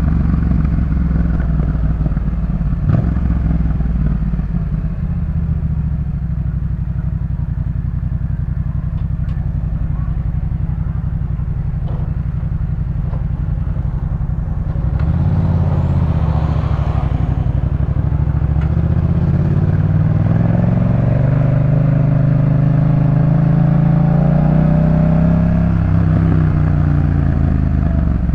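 Yamaha MT-07's 689 cc parallel-twin engine through a Jeskap K4 full aftermarket exhaust, running steadily. From about twenty seconds in it revs up with a rising pitch, then eases off near the end.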